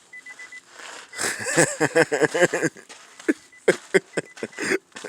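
A person laughing hard: a fast run of bursts for about a second and a half, then several shorter separate laughs.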